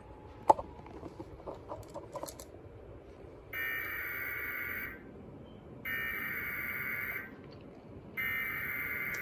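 Emergency Alert System SAME header: three identical bursts of harsh digital data screech, each about a second and a half long with a pause of about a second between them, starting about three and a half seconds in. The header encodes the alert that follows, here a severe thunderstorm warning. Before it come a few faint clicks and one sharp click about half a second in.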